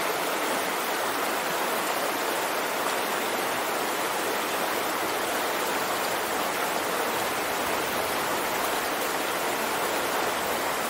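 Small, shallow river flowing steadily over stones, a constant babbling of rippling water.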